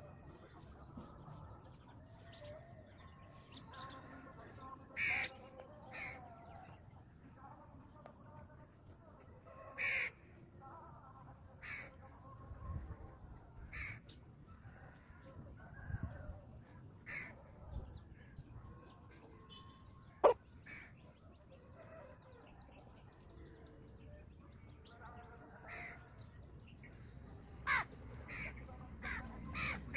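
A chicken pecking rice grains off bare dirt, its beak giving short, sharp taps, amid soft clucking and the harsh calls of other birds now and then. About twenty seconds in, one loud short cry falls in pitch.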